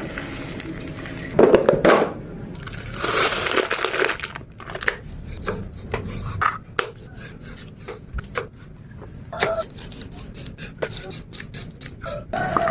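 Kitchen food-preparation sounds: irregular knocks and clicks with rustling and crunching, as vegetables and utensils are handled.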